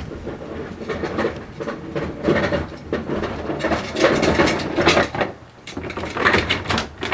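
Boxed sawmill parts and their packaging being handled and sorted: an irregular run of knocks, scrapes and rustles.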